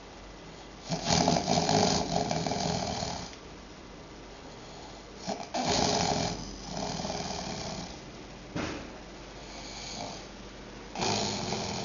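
A sleeper snoring loudly in uneven bouts. There is a long snore about a second in, two more around six to eight seconds in, then a short sharp one, and another begins near the end.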